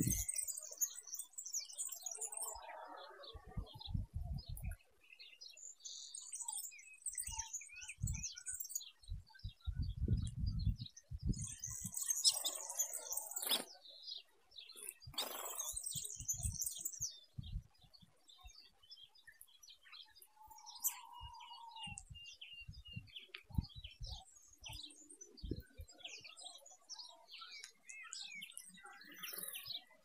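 Small finches chirping and twittering in short bursts, with short low rumbles now and then.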